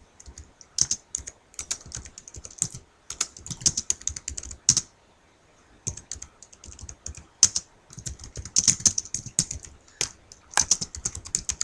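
Typing on a keyboard: irregular runs of quick key clicks with a short pause about five seconds in, as a message is typed out.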